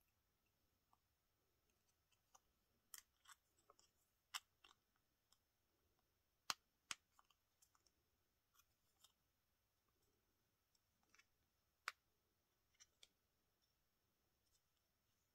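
Faint, irregular sharp clicks and ticks of a metal paperclip being worked onto a shaped metal bottle-cap flower, metal tapping and scraping on metal.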